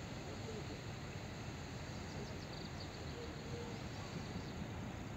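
Faint, steady low rumble of steam locomotive 555.0153 approaching in the distance, with no clear exhaust beat, and a few short high bird chirps about two to four seconds in.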